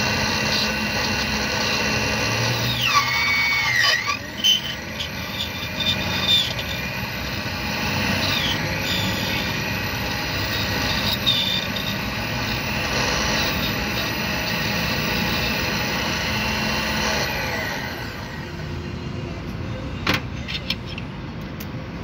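Key duplicating machine running as a spare key is cut: the motor and cutter wheel hum steadily, with short falling squeals as the cutter bites the key blank about three to four seconds in and again briefly later. About seventeen seconds in the machine is switched off and winds down, followed by a couple of clicks.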